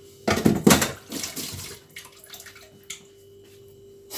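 A short rush of liquid being poured or splashed, loudest for about a second and then tailing off.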